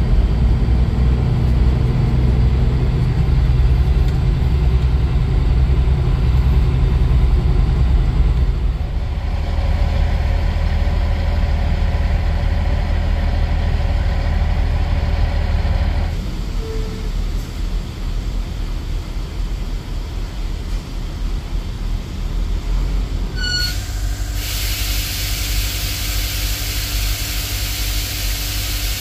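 Semi truck's diesel engine running steadily; its sound shifts abruptly twice. About six seconds before the end, a loud steady hiss begins.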